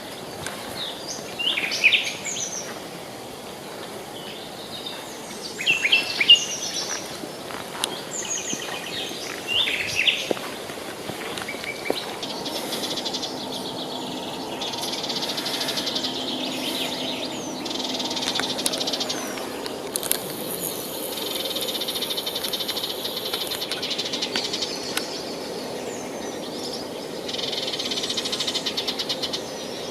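Forest birdsong: short chirps sliding up and down in pitch for the first ten seconds or so, then long, rapidly pulsed buzzing trills that start and stop several times. A steady hiss of running river water lies under it all.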